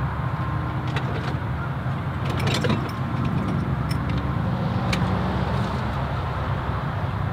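A steady low rumble of idling vehicles. Scattered clicks and a short clatter about two and a half seconds in come from items being rummaged in a semi truck's side storage compartment.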